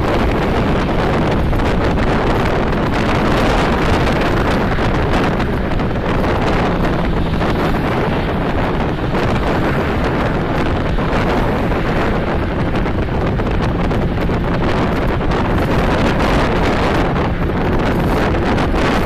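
Steady wind buffeting the phone's microphone inside a car moving at highway speed, over a continuous rush of road and tyre noise.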